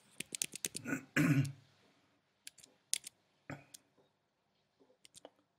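Computer keyboard keys tapped in a quick run, then a man clearing his throat about a second in, followed by a few scattered single key presses.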